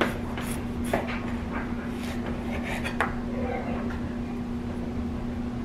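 Serrated bread knife slicing through raw red potatoes and knocking on a wooden cutting board: a handful of sharp knocks, most of them in the first three seconds, over a steady low hum.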